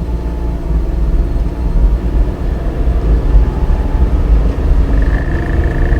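Suzuki Jimny JB64 running, heard as a steady low rumble with an engine drone, and a thin steady high buzz setting in about five seconds in. The owner blames an abnormal noise in this Jimny on a vibrating transfer lever.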